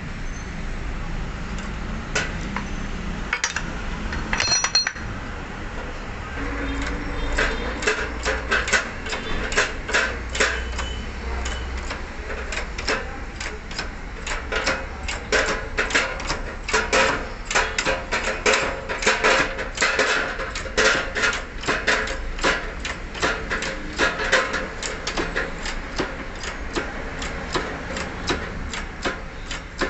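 Hammer blows on a steel pipe driver, seating the wheel hub into the new wheel bearing in the steering knuckle: a few scattered strikes, then steady metallic hammering at about two to three blows a second from about seven seconds in.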